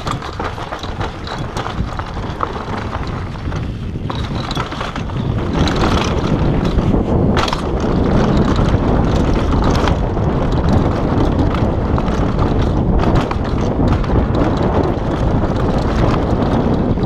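Downhill mountain bike ridden fast over a dirt trail: wind buffets the microphone, the tyres roll over the dirt, and the bike chatters and clatters over bumps and roots. It gets louder about six seconds in as the speed picks up.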